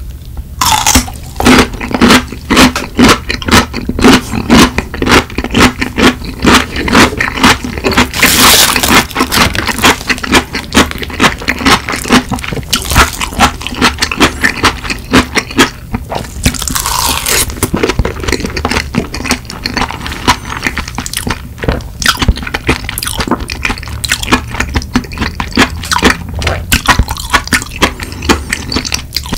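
Close-miked crunching as crisp ponytail-radish (chonggak) kimchi is bitten and chewed, several crisp crunches a second. Curry rice wrapped in seasoned laver is also eaten, and two longer, hissier stretches come about eight and seventeen seconds in.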